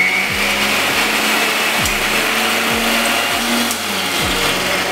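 Electric mixer grinder with a stainless-steel jar running steadily at full speed, blending roasted watermelon pieces into a liquid.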